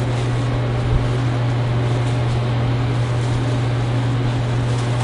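Steady low hum and hiss of restaurant kitchen machinery, with one faint knock about a second in.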